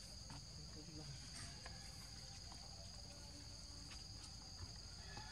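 Faint, steady insect chorus: a continuous high-pitched drone at two pitches, with a few soft scattered ticks.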